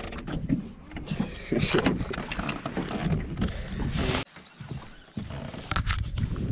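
Wind rumbling on the microphone, with a few scattered knocks and clicks.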